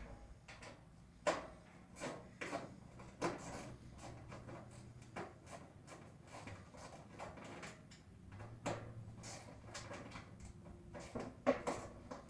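Irregular faint clanks and knocks of scrap metal being handled while an HVAC unit is taken apart for scrap, the sharpest strikes about a second in and near the end.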